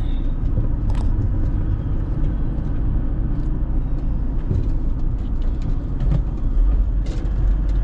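A car driving along: a steady low rumble of engine and tyre noise, with a few faint ticks.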